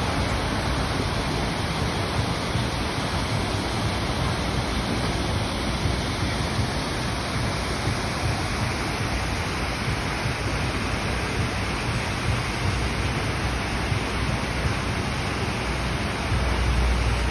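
Steady rushing of water cascading down man-made rock waterfalls into a lagoon, with a low rumble growing louder near the end.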